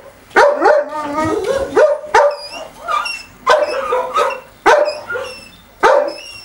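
Several dogs barking and yipping in irregular, overlapping bursts, with a loud sharp bark about every second or so.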